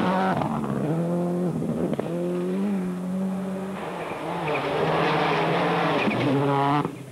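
Rally cars at full throttle on a gravel stage: a Subaru Impreza passes, then a Ford Focus comes on. Their engines rev up and drop back again and again through gear changes and lifts. The sound cuts off sharply near the end.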